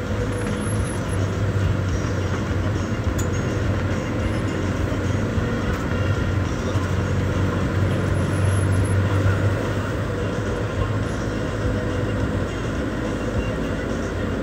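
Bus engine running with road noise, heard from inside the cab while driving: a steady, low drone.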